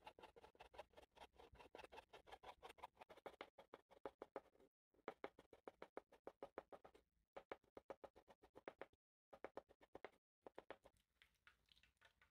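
Chef's knife chopping rapidly on a wooden cutting board, a quick run of taps several a second, slicing strips of speck and then preserved artichoke hearts. The chopping breaks off abruptly a few times and thins out near the end.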